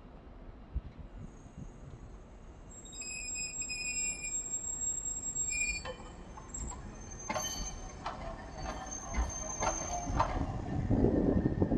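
Hankai Tramway streetcar No. 504 rolling slowly past. Its wheels squeal on the rails in high, steady tones for about four seconds, then clack and knock in a quick irregular run as they cross rail joints and points. A low rumble builds near the end.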